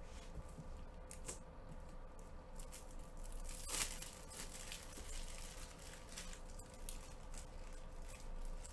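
Light handling noise: scattered crinkles and rustles, with one louder crackle about four seconds in, over a faint steady hum.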